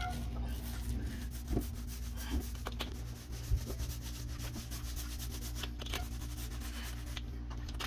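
Paint roller with a 3/8-inch nap rolling paint slowly back and forth over a freshly mudded drywall ceiling. It makes a steady rubbing sound full of fine ticks, with a few sharper ticks in the first few seconds.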